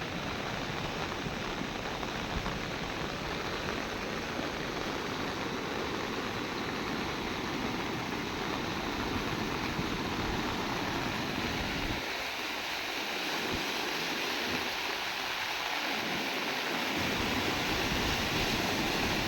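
Floodwater rushing steadily during heavy rain, a continuous wash of water noise.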